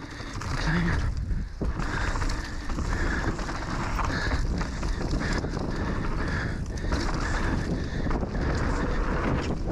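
Wind buffeting the camera microphone and knobby Schwalbe Magic Mary tyres rolling over a dirt trail as a Haibike Nduro 8.0 e-mountain bike descends, with frequent small knocks from the bike over bumps.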